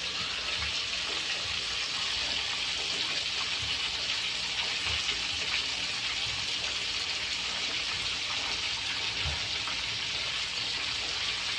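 Milkfish (bangus) frying in oil over a low flame, a steady, even sizzle.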